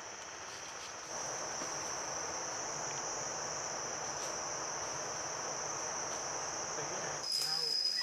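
Steady high-pitched buzzing of an insect chorus over a soft hiss. Near the end the buzz changes to a slightly lower, purer and louder tone.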